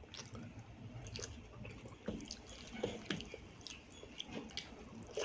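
Close-miked chewing with wet mouth smacks, together with the squish of rice and mashed bhorta being mixed by hand on a brass plate. The sound is a string of short, irregular clicks and smacks.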